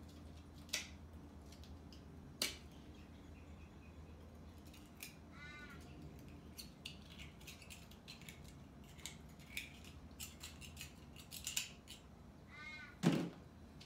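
Small knife prying open raw cockles: scattered sharp clicks and scrapes of the blade on the shells, with a heavier knock near the end.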